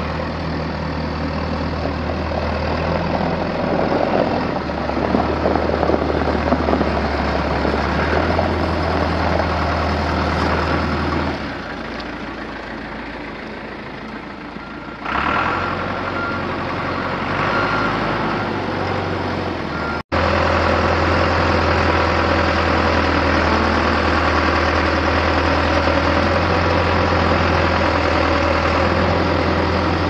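John Deere 410E backhoe's 4.5-litre four-cylinder diesel engine running. It grows louder and busier for the first ten seconds or so, drops back, picks up again about fifteen seconds in, and after a sudden break about twenty seconds in runs steady.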